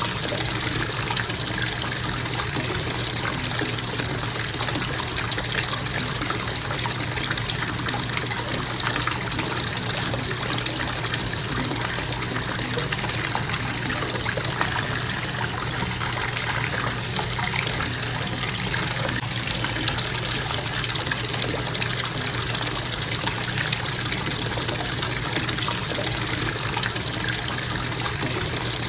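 Bathtub faucet running steadily, water pouring into the tub in an even, unbroken stream.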